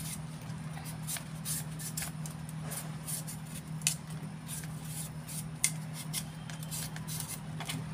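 Kitchen knife shaving the skin off a chayote: a quick, irregular run of short crisp scraping strokes, over a low steady hum.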